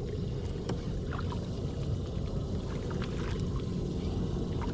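Steady low rumble aboard a small fishing boat on the water, with a few faint light clicks.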